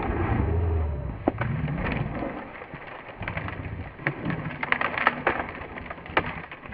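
Deep rumbling growls from animals fighting, with scattered sharp clicks and scuffling in the second half.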